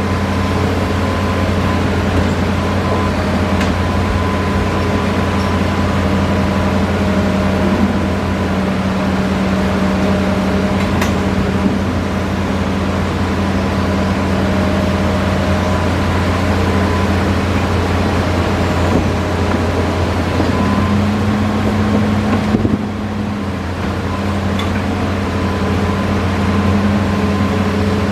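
Hitachi Zaxis excavator's diesel engine running steadily with a constant hum and a faint high tone, dipping briefly near the end.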